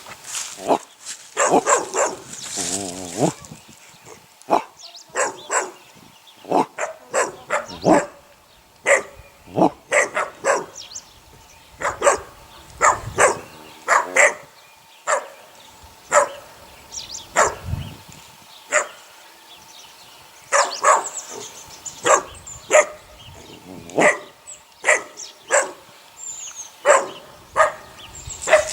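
Eight-week-old puppies barking: many short, sharp barks, one or two a second, coming irregularly throughout.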